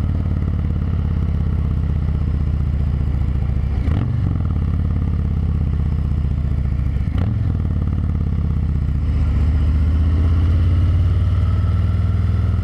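Harley-Davidson Fat Boy's Milwaukee-Eight 114 V-twin running under way, with two brief dips about four and seven seconds in, then picking up a little near the end.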